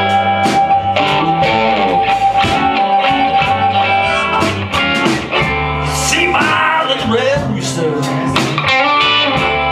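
Live electric blues band playing an instrumental passage: amplified harmonica cupped to the microphone over electric bass, hollow-body electric guitar and drums. A long note is held for the first few seconds, then bent, sliding notes follow past the middle, over a steady beat.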